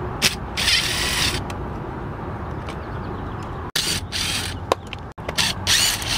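DeWalt cordless drill/driver running in several short bursts, backing out the terminal screws on the side of an old GFCI receptacle, with a few sharp clicks between the bursts.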